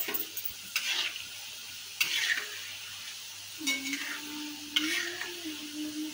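Flat metal spatula stirring and scraping small pieces frying in an iron kadai, with a steady sizzle under several separate scraping strokes.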